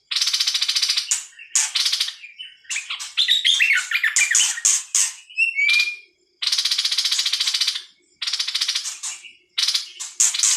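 A songbird calling: repeated harsh, buzzy chattering calls about a second long each, separated by short gaps, with a run of quick falling whistled notes about three to five seconds in.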